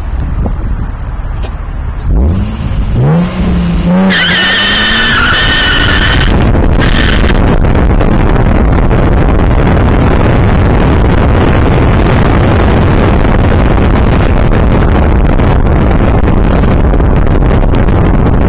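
Car with a newly fitted Fujitsubo aftermarket exhaust pulling away, its engine note rising about two seconds in. A high wavering squeal sounds for about two seconds, briefly again just after, then a steady rush of wind on the microphone held out of the window while the car drives on.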